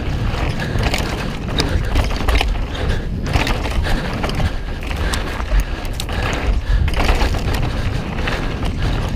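Mountain bike rolling fast down a dirt trail: wind rumbling on the microphone, tyre noise, and the bike and chain rattling over bumps.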